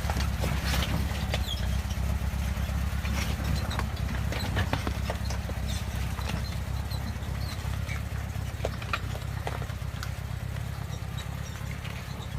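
VW bus engine running steadily as a low rumble while driving off-road, with scattered clicks, knocks and rattles over the top.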